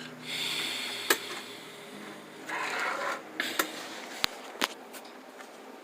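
Rustling and a handful of sharp clicks, as of metal wrenches being handled and set down.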